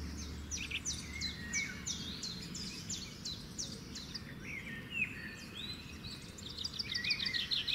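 Several birds chirping and singing: many quick, high chirps that slide downward, with a rapid trill about seven seconds in.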